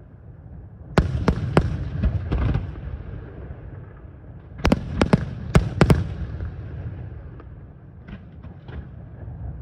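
Aerial firework shells bursting: three sharp bangs about a second in, a tighter cluster of about five near the middle, and a few faint pops near the end, over a low rumble.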